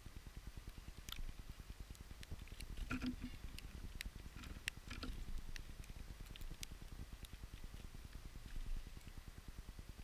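Low, fluctuating rumble of wind on the microphone, with scattered faint clicks and ticks.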